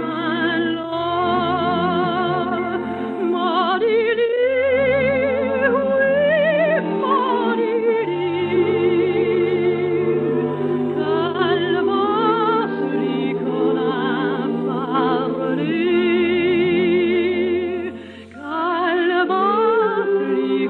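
A soprano with a strong operatic vibrato sings a slow lullaby over sustained orchestral accompaniment, pausing briefly between phrases near the end. It is heard through the narrow, top-cut range of an old broadcast recording.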